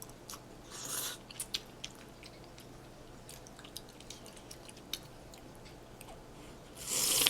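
Close-mic eating sounds of hot ramen: soft chewing with small wet mouth clicks. There is a soft breathy rush of air about a second in and a louder one near the end.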